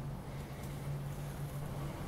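A steady low hum with a faint hiss, and no distinct handling sounds.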